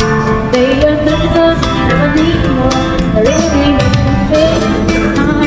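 Background music with a steady beat of about two strikes a second and a melody that glides in pitch.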